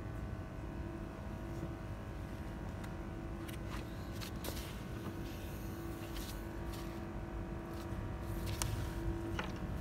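Yamaha 40 hp outboard motor running steadily with a low rumble, with a few scattered clicks and knocks over it.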